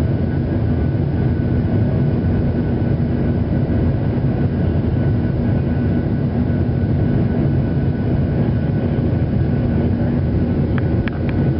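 Steady cabin noise of a Boeing 737-800 in flight: the drone of its CFM56 turbofan engines and the rush of air, with a steady low hum running through it. A few light clicks near the end.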